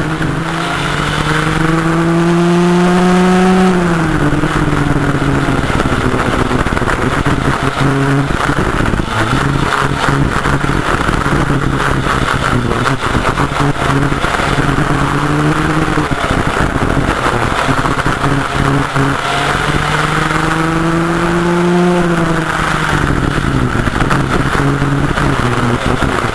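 Vintage rear-engine kart's engine heard onboard, revving up along a straight and then dropping off as the driver lifts for a corner. This happens twice, about four seconds in and again near the end.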